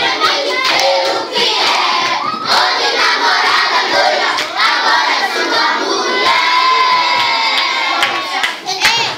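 Many children's voices shouting and talking over one another, loud and without a break, with one voice holding a long drawn-out note about two-thirds of the way through.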